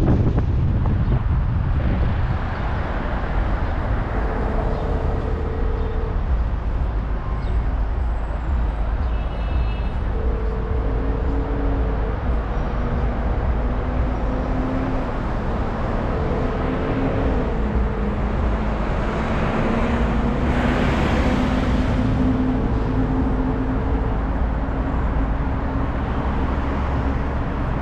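Road traffic running steadily with a heavy low rumble. Through it, a steady mid-pitched tone sounds for about two seconds every six seconds, and a brighter hiss swells and fades about twenty seconds in.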